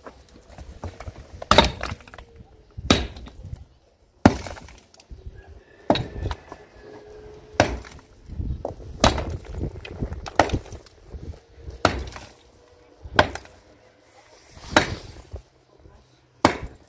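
Pickaxe striking rocky ground and stones, breaking them up: about eleven hard, sharp blows roughly a second and a half apart, each followed by the chink and clatter of rock chips.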